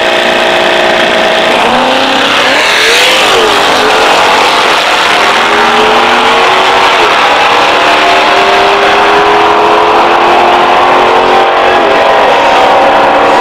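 Drag race car's engine at full throttle accelerating down the strip. The pitch climbs and drops back sharply a few times as it shifts gears.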